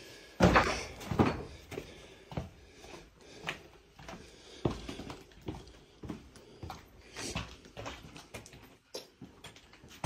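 Footsteps on a gritty concrete floor and steps, irregular footfalls about once or twice a second, mixed with handling knocks on the phone microphone; the loudest knocks come in the first second or so.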